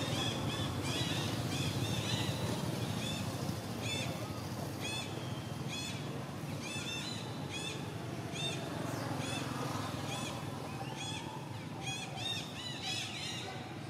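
Small birds chirping over and over, many short rising-and-falling chirps that come thicker near the end, over a steady low background rumble.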